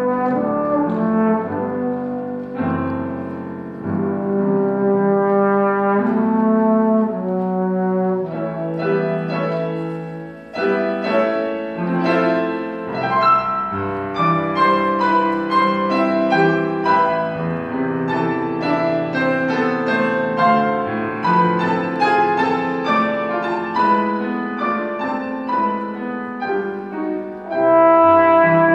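Trombone and grand piano playing a classical concerto movement. In the middle stretch the piano plays alone with quick, busy notes. Near the end the trombone comes back in, clearly louder.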